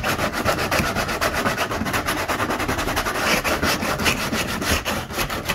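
Folded 100-grit sandpaper rubbed by hand in rapid back-and-forth strokes over the cut edge of a hatch hole in a plastic kayak hull, smoothing off the ridge of plastic melted by the hot-knife cut.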